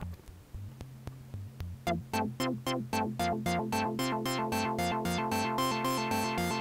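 Moog Subharmonicon analog synthesizer playing a sequenced bass-note pattern. About two seconds in, its ladder filter starts opening on every note under the filter envelope, giving a fast run of bright, plucky notes, about four or five a second. The notes get brighter and longer toward the end as the envelope is adjusted.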